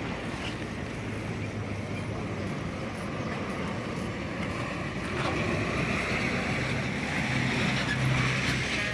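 Steady vehicle engine and traffic noise, with a low hum, getting louder about five seconds in.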